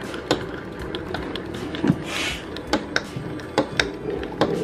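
Irregular light clicks and taps of engine parts being handled and moved on a dismantled two-stroke motorcycle engine, with a brief scraping hiss about two seconds in.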